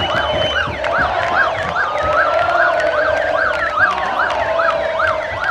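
Sirens: one yelps rapidly up and down about three times a second while another rises slowly and then falls. Underneath is the noise of a large crowd of fans.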